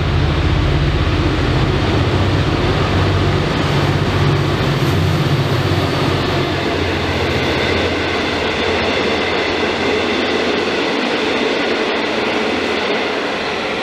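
V/Line N-class diesel-electric locomotive, with an EMD 12-cylinder two-stroke engine, running past at speed hauling a passenger train. Its low engine drone fades after six to eight seconds and gives way to the steady rolling noise of the carriages' wheels on the rails.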